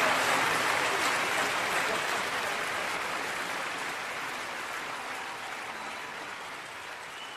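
Large concert audience applauding, the applause fading steadily away.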